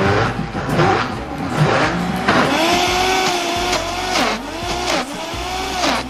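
Vitamix blender motor running on thick frozen fruit as the tamper pushes it down. The motor's pitch wavers and dips twice in the second half as it bogs under the load.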